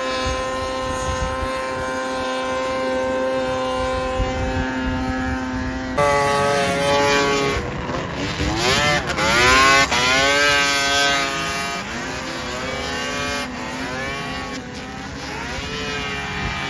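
Vintage snowmobile's two-stroke engine running at a steady pitch. After a sudden break about six seconds in, it revs up and down repeatedly as the sled is ridden.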